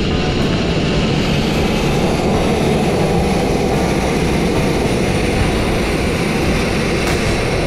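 Sandblasting nozzle blasting fine crushed-glass abrasive at a truck chassis frame: a steady, loud hiss of air and grit that does not let up.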